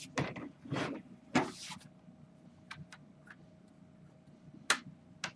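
Hard plastic PSA graded-card slabs clacking and sliding against one another as a stack is flipped through by hand: a few light clicks, a longer scrape about a second and a half in, and a sharper click near the end.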